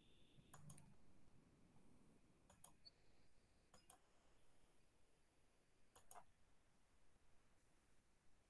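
Near silence broken by four faint computer mouse double-clicks, spread over about six seconds.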